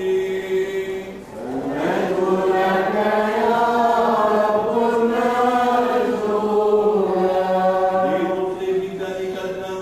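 A man's voice chanting liturgically in Byzantine style, with long drawn-out notes that wind up and down. It dips briefly about a second in, then comes back louder and holds.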